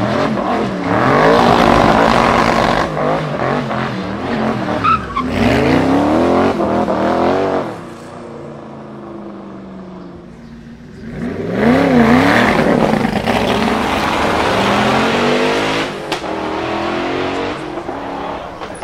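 Noble M600 Speedster's Yamaha-derived 4.4-litre twin-turbo V8 revving hard up and down, with tyres squealing as the car slides through tight turns. The noise comes in two loud spells, with a quieter stretch in the middle.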